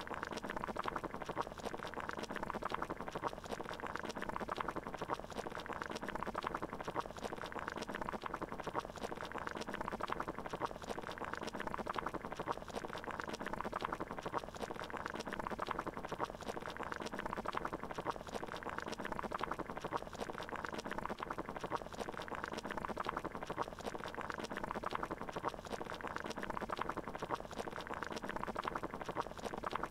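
Water boiling in a pot, a steady, continuous bubbling with no change over the whole stretch.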